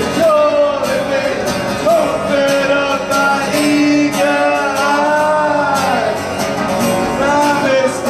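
Music with a voice singing a melody over instrumental accompaniment.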